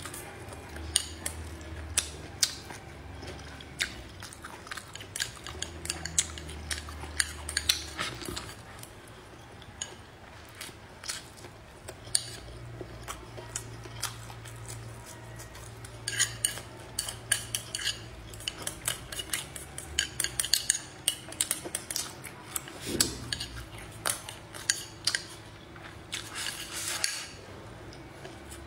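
Eating at a table: utensils clicking and scraping against dishes in many irregular sharp taps, with biting and chewing.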